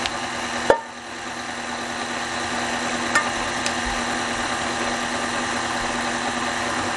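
KitchenAid stand mixer running steadily on low speed, its motor humming and the wire whisk whirring in the steel bowl as it whips gelatin with hot sugar syrup for marshmallows. A sharp click sounds about a second in.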